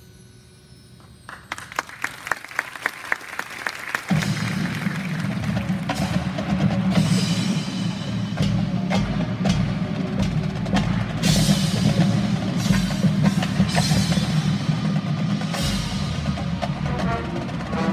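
High school marching band performing: after a quiet moment, sharp percussion clicks start about a second in, about five a second, and about four seconds in the full band comes in loud and sustained over the drums.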